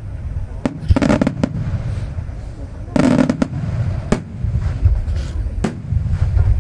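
Star mine fireworks display: shells bursting in clusters of heavy booms about one second and three seconds in, sharp single cracks in between, over a continuous low rumble of echoing bursts.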